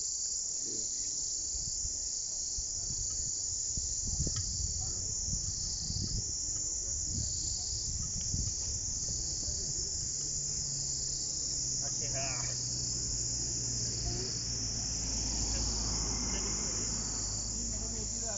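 A steady high-pitched insect chorus that swells and fades every second or two. A low steady hum joins about ten seconds in.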